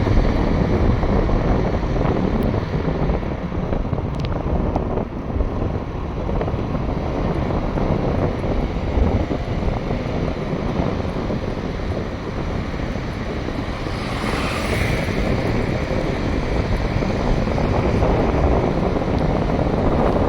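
Wind blowing across the microphone: a steady, loud low rumbling noise, with a brief brighter hiss about fourteen seconds in.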